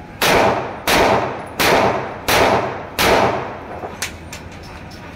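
Five pistol shots from a locally made Beretta 92-style 30 bore (7.62×25 mm Tokarev) pistol being test-fired, evenly spaced about two-thirds of a second apart, each trailing off quickly. A much lighter click follows about a second after the last shot.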